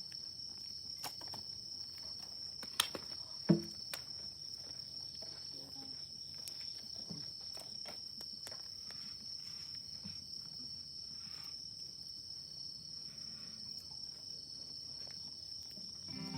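Insects, likely crickets, trilling steadily in one high band, with scattered faint clicks and two sharper knocks about three seconds in.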